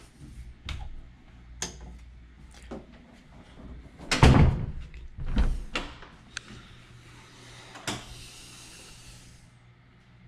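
A panelled interior door being handled and swung open: a series of clicks and knocks, the loudest a heavy thump a little before halfway through, then a short hissing rush near the end.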